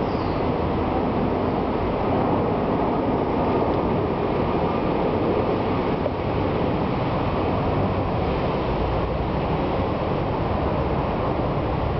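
Steady, loud rushing background noise, level throughout with no distinct events, with a short high falling chirp right at the start.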